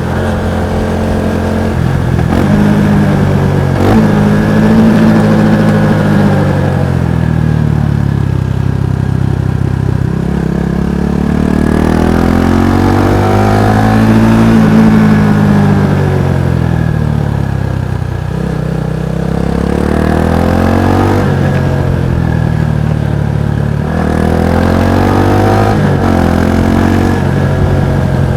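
Kawasaki Estrella's single-cylinder exhaust note while riding. The revs climb and fall again and again, with the longest climb in the middle followed by a drop.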